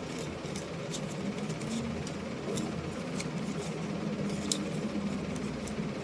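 Indoor background noise: a steady low hum with scattered faint clicks.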